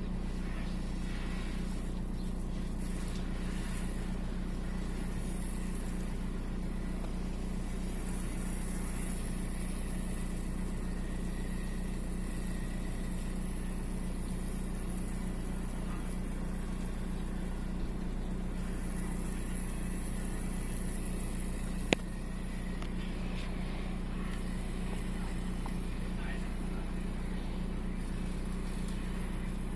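Volkswagen 1.9 TDI AXR four-cylinder turbodiesel idling steadily, the engine that shakes with an intermittent cylinder 4 misfire. A single sharp click sounds about 22 seconds in.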